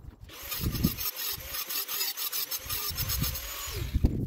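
Steady rasping scrape, like a saw or rasp working through material, made of rapid fine strokes; it starts just after the beginning and stops about three and a half seconds later, with a few low knocks underneath.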